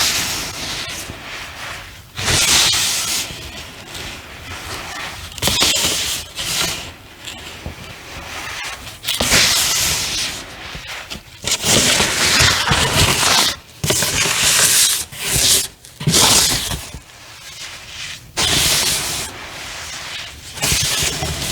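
Clumps of reformed cornstarch being squeezed and crushed by hand, giving a soft, squeaky crunching in repeated bursts of a second or two with short pauses between.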